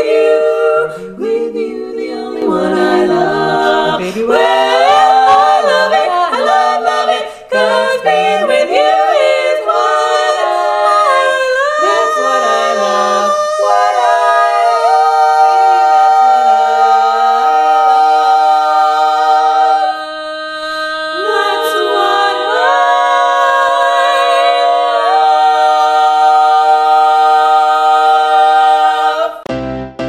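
A women's barbershop quartet singing a cappella in close four-part harmony: a moving passage for about the first fourteen seconds, then the song's closing chords held long, with a short break about twenty seconds in before the last chord is sustained and stops near the end.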